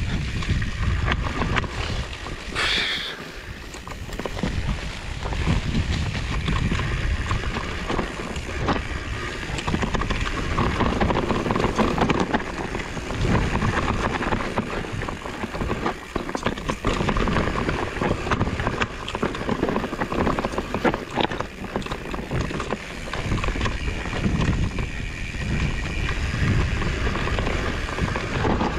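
Trek Farley fat bike riding over stony trail: the tyres rumble with a constant patter of knocks and rattles from the bike, and wind buffets the microphone. A brief high squeal about three seconds in.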